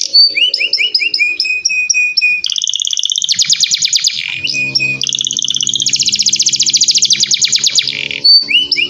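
Domestic canary singing fast and loud. It opens with a run of quick down-sweeping whistled notes, then goes into long rapid rolling trills from about two and a half seconds in. A low steady tone sits beneath the trills in the second half.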